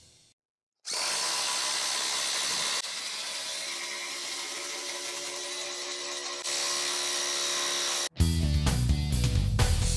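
DeWalt 20V Max brushless impact driver hammering a half-inch by 8-inch lag bolt into stacked timber, sped up four times so the impacts blur into a high, even buzz. It dips a little in the middle, comes back up, and cuts off suddenly about eight seconds in.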